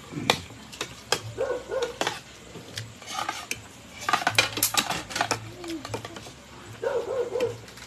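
Utensils clinking and scraping against a plate as someone eats, with sharp irregular clinks that bunch together about four to five seconds in. A few brief wavering pitched vocal sounds come in between.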